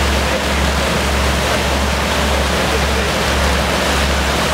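Boat wake churning and rushing behind a moving passenger boat, a steady loud roar of white water, with a low steady drone from the boat's engine underneath.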